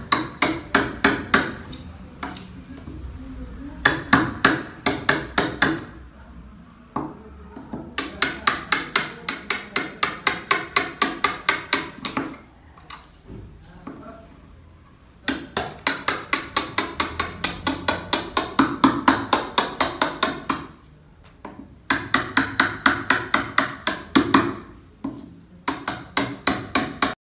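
Hammer tapping in quick runs of about five blows a second, each run lasting a few seconds with short pauses between, as a lock is fitted into wood.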